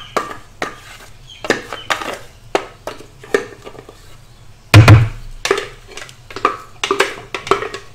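Wooden spoon scraping and knocking against the inside of a stainless steel thermo-cooker jug to get the minced onion and chilli mix out: a string of sharp knocks, with one heavier thump about five seconds in.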